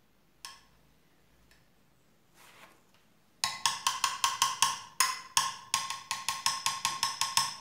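A metal fork tapped rapidly against the rim of a glass dish, about six quick clinks a second with a ringing tone, shaking excess melted chocolate off a dipped coconut bonbon. The tapping starts about three and a half seconds in, after a single light click about half a second in.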